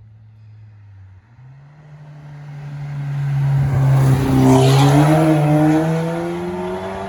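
Ford Fiesta ST's turbocharged 1.6-litre four-cylinder, breathing through a decatted KMS Hurricane exhaust, accelerating past in a drive-by. The exhaust note rises steadily in pitch and swells to very loud as the car passes midway, then eases off.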